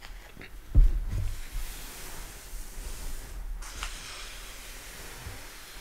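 Hands brushing and smoothing over the paper pages of an open book, a soft rustling, with one low thump about a second in as a hand comes down on the book.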